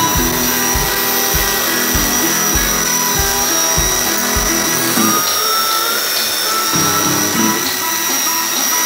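Makita belt sander running steadily as a wooden knife handle is pressed against its sanding belt, a constant high whine, under background music with a steady beat.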